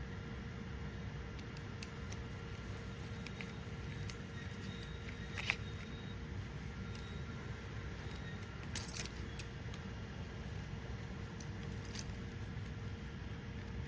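A few scattered light clicks and clinks of small hard parts being handled, the clearest about five and a half and nine seconds in, over a steady low background hum.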